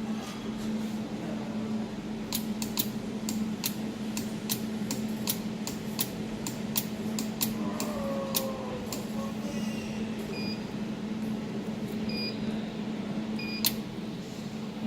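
Jewelry laser welding machine firing pulses: a sharp snap with each pulse, about two a second for several seconds, over the machine's steady hum. Later come three short electronic beeps and one more snap.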